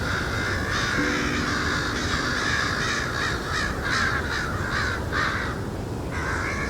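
Crow cawing: a run of harsh caws that break into a quick series about three seconds in, with one more call near the end, over a steady background hiss.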